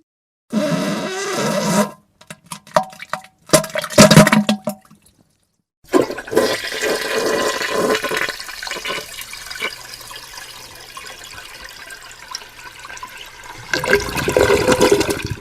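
Short wet farting bursts, then a long rush of water like a toilet flushing, which fades and swells again near the end.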